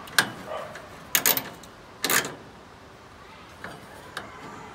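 A socket ratchet clicking and knocking in a few short, separate bursts as it snugs down a burner screw inside a gas grill's steel firebox. The loudest burst is a short rasp about two seconds in.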